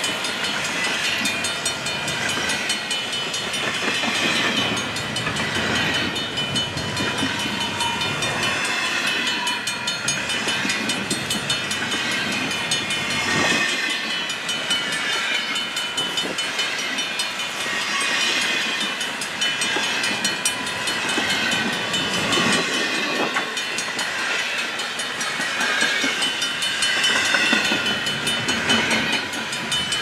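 Double-stack intermodal well cars of a long CN freight train rolling past: a steady rumble and clatter of steel wheels on the rails, with steady high-pitched tones above it.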